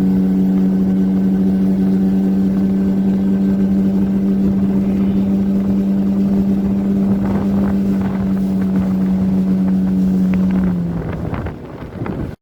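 Small 9.9 hp outboard motor running steadily at high revs on a boat, with some wind noise; about eleven seconds in, the engine note dips and fades away, then the sound cuts off.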